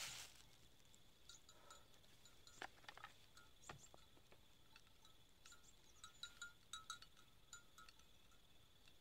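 Near silence: faint rural outdoor ambience with a thin steady high tone, a few small clicks, and a scatter of brief high chirps or clinks clustered in the second half.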